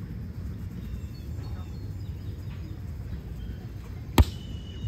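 A single sharp slap of a hand striking a volleyball about four seconds in, over a steady low background rumble.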